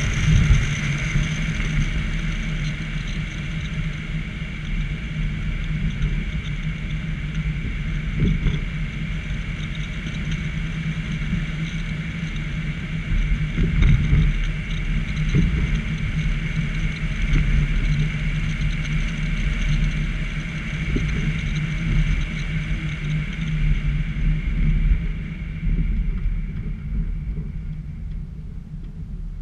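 A car being driven, heard from a camera mounted on the front of the car: a steady low rumble of engine, tyres and rushing air. It grows quieter and duller near the end.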